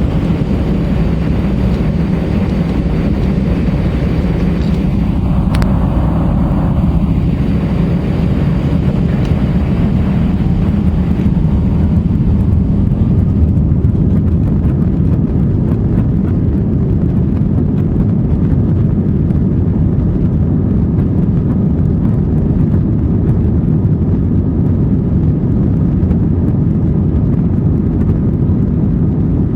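Loud, steady jet engine and airflow noise inside the cabin of an Airbus A320-232 during takeoff, from its IAE V2500 turbofans. The higher hiss fades from about twelve seconds in, leaving a deep rumble.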